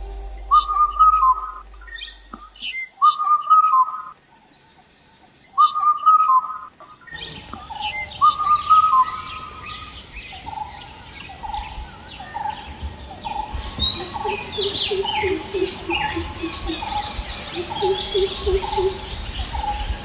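Forest birdsong: one bird repeats a whistled call four times, each a short note leading into a held whistle. From about seven seconds several birds call together, one giving a regular note about once a second and another a low, warbling trill.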